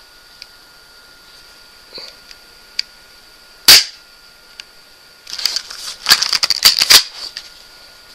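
Spring-powered M21 airsoft pistol firing a BB once, a single sharp snap a little under four seconds in. About a second and a half later comes a run of clicking and rattling as the pistol is handled and re-cocked for the next shot.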